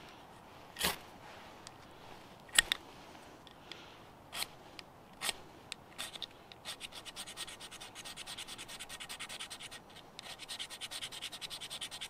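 A fire steel and striker scraping against damp birch bark. There are a few single scrapes a second or two apart, then from about halfway rapid, even scraping strokes, several a second.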